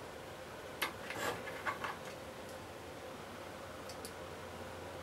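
A few light clicks and scrapes of a small screw being handled and fitted into the foot switch mounting of a Hoover Junior 1346A vacuum cleaner, most of them about a second in, with a couple of fainter ticks later, over a faint steady hum.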